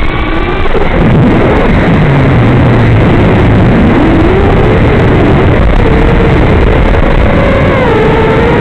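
The 2206 2522 kV brushless motors of a 5-inch FPV racing quadcopter whining in flight under heavy static hiss. The pitch drops away at the start, sits low about two seconds in, climbs back near the middle and then wavers up and down with the throttle.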